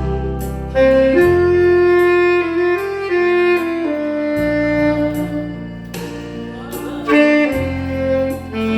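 Saxophone playing a slow, sustained Korean ballad melody, held notes moving from one to the next, over an accompaniment with a steady bass line and occasional percussion hits.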